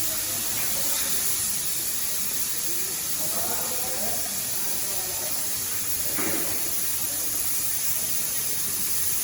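Steady, loud hiss of the gas cutting torch on a portable track-type ('turtle') cutting machine, its flame jet burning continuously as it cuts steel plate.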